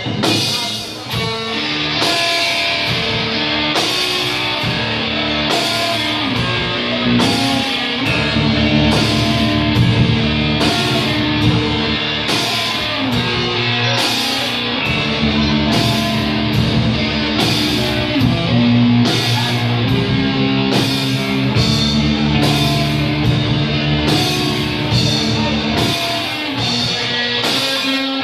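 Hardcore punk band playing live: heavily distorted electric guitar riffing over a drum kit, loud and continuous.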